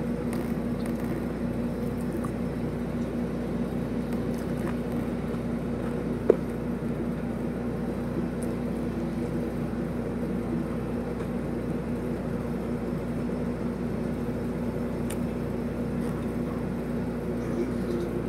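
Steady machine hum with a low, even tone, broken once by a sharp click about six seconds in.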